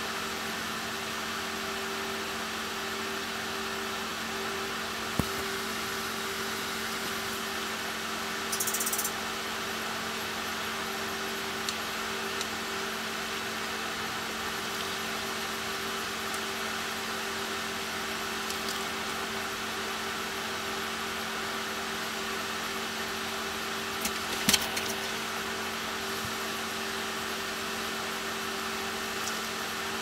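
Steady mechanical hum and hiss with a low drone. A light click about five seconds in, a brief high hiss near nine seconds, and a sharper click near twenty-five seconds.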